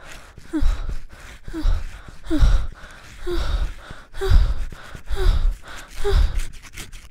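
A person breathing hard in rhythmic gasps, about one a second, each with a short falling voiced note.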